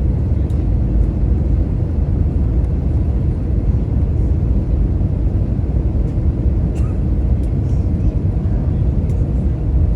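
Steady low rumble of an Airbus A320neo airliner heard from inside the passenger cabin, even throughout, with a few faint ticks.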